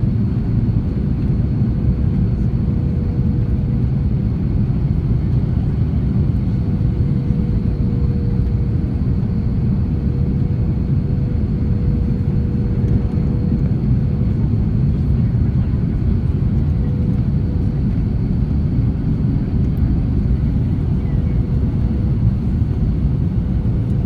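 Steady cabin noise of an Airbus A330-300: the constant low rumble of engines and airflow, with a thin steady hum running through it.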